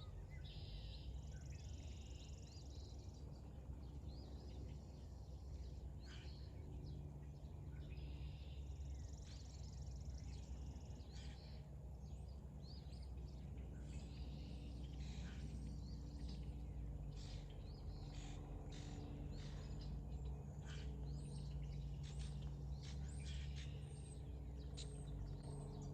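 Songbirds chirping and calling over and over, busier in the second half, above a steady low hum.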